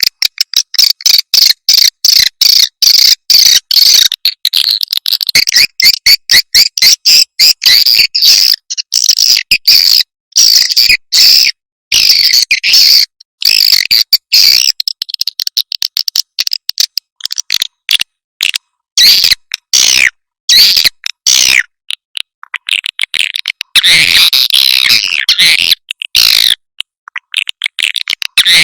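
Swiftlets' high, rapid chirping and twittering calls, an edited lure recording played to draw swiftlets into a nest house. The chirps come in quick bursts broken by sudden short silences, with a denser stretch of chatter near the end.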